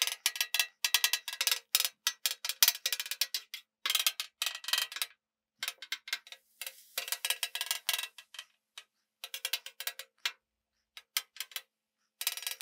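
Metal spatula blade chopping ground chicken against the steel top of a Blackstone flat-top griddle: quick runs of ringing metallic clanks and scrapes, in bursts with short pauses between them.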